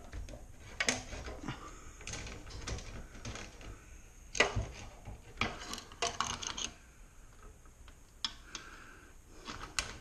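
Irregular metallic clicks and clinks of a garage door opener's roller chain and vise-grip pliers being worked by hand at the drive sprocket. The loudest clink comes about four and a half seconds in.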